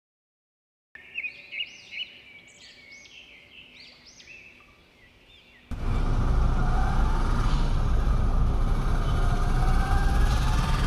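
Faint, repeated high chirps, each rising and falling, about two a second; about six seconds in, a loud, steady background of street traffic noise takes over.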